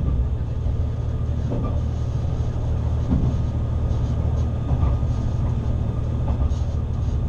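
Diesel railcar running along the track, heard from inside the car: a steady low rumble of engine and wheels, with a few faint knocks from the wheels over the rails.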